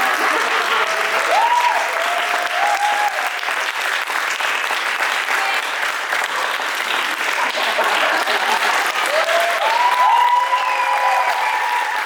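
Audience applauding steadily, with whooping cheers rising over the clapping about a second in and again near the end.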